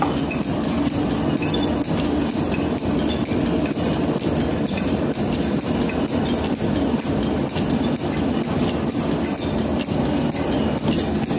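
Federal metal planer running, its tool taking a cut along a steel flame-cut plate, with a steady, fast, even clatter.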